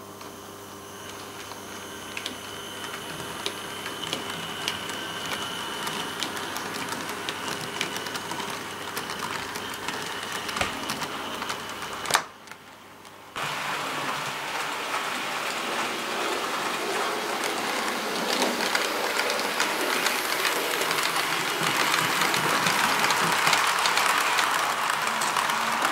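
TT-scale model trains running on the layout: small wheels clicking over rail joints with a light mechanical whirr. About 12 seconds in there is a sharp click and a brief drop, then a louder, denser rattle as a train of open freight wagons rolls close by, growing toward the end.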